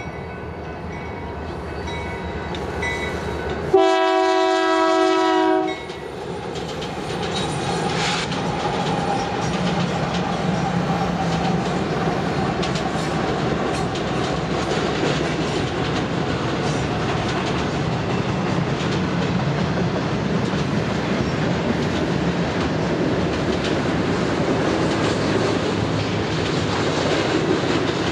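Train horn sounding one blast of about two seconds, several tones at once, about four seconds in. Then the train runs past with a steady rolling noise of its wheels on the rails.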